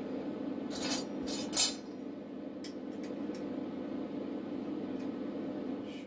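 Metal cutlery of a spoon-and-fork bird sculpture clinking as it is handled and bent, with a cluster of sharp clinks about a second in and a few lighter ticks later, over a steady low hum.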